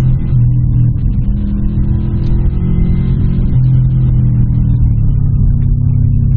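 Car engine running at a steady pace with tyre and road noise, heard from inside the cabin while driving over packed snow.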